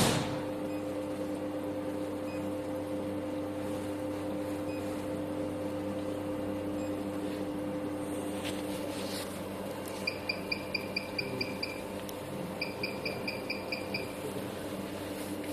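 Soprano Titanium diode laser hair removal machine beeping with each laser pulse: two runs of short high beeps at about five a second, matching its 5 Hz pulse setting, over a steady low hum.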